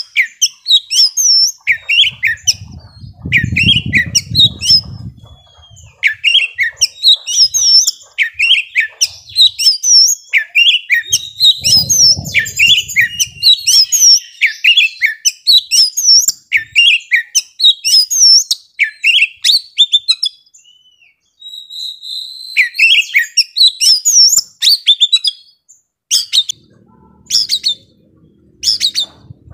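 Young wild-caught oriental magpie-robin singing a fast, unbroken run of sharp chirps and whistled notes. Its song breaks off briefly about two-thirds of the way through, then resumes and thins out to a few scattered notes near the end.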